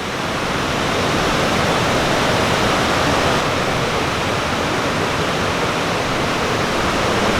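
Waterfall water rushing steadily, growing a little louder over the first second or so and then holding even.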